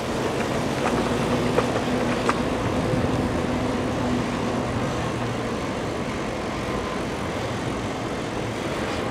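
Steady wind and rolling noise from riding an electric bike, with a faint steady hum underneath and a few light clicks in the first couple of seconds.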